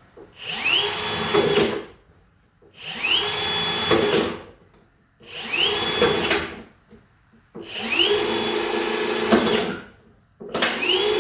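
Cordless drill boring holes through a thin plastic 5-litre bottle in five short bursts. Each burst opens with a rising whine as the motor spins up, holds steady for a second or two, then stops.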